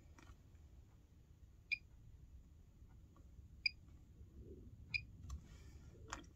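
Three short, high electronic beeps from the heat press, spaced a second or two apart, over a faint low hum, with a light click near the end.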